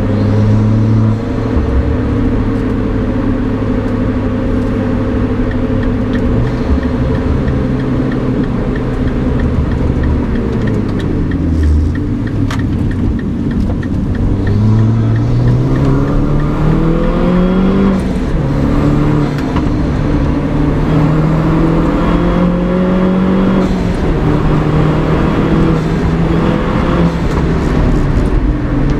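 Mini Cooper JCW R56's turbocharged four-cylinder with a DOS cold air intake and stock exhaust, driven under load. The engine note holds steady, falls off about a third of the way in, then climbs in pitch with two sudden drops at upshifts.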